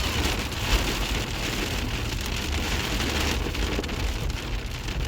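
Hail coming down hard: a dense, steady clatter of many small hailstones striking surfaces.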